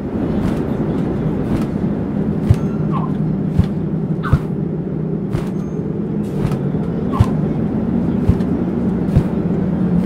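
Sound-designed bird flight: a steady rush of wind with a wing flap about once a second.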